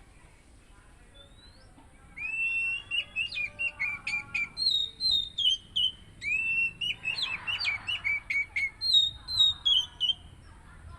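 Oriental magpie-robin (kacer) singing loud whistled song in two long phrases of quick, sliding notes, the second starting about six seconds in.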